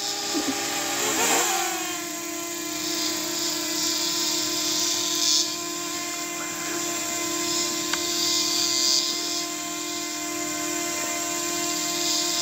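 Small drone's propellers whining in a steady multi-toned hum; the pitch rises about a second in, then holds level as it hovers.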